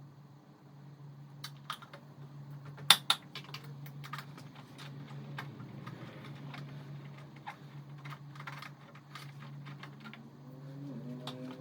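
Hand tools clicking and clinking on the motorcycle's seat bolts during seat removal, with sharp clicks scattered through and a loud pair about three seconds in, over a steady low hum.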